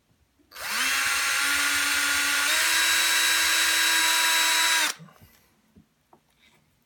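Electric screwdriver driving a small screw into a 3D-printed ABS plastic case. The motor spins up about half a second in, runs steadily for about four seconds with a slight rise in pitch halfway through, then stops.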